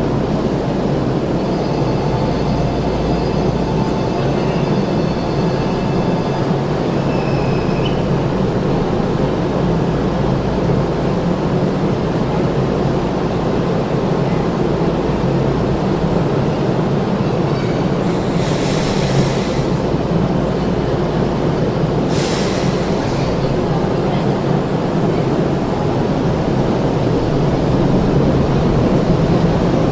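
Enoden 1500-series electric train at the platform: a steady rumbling hum of the train, with a few faint high tones in the first seconds and two short bursts of hiss about two-thirds of the way through, getting a little louder near the end.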